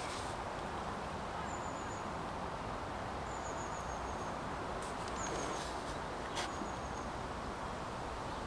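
Steady outdoor background hiss with a short, high chirping trill that falls slightly in pitch, repeating about four times every second or two. A single faint tick comes about six seconds in.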